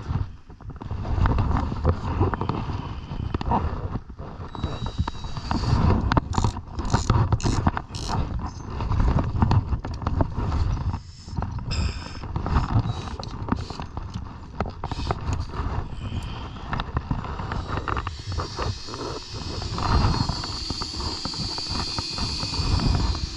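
Hand-tool work on wooden deck boards: a claw pry bar and hammer knocking, scraping and prying, with runs of sharp metal taps about six to eight seconds in and again around twelve seconds, over a steady low rumble.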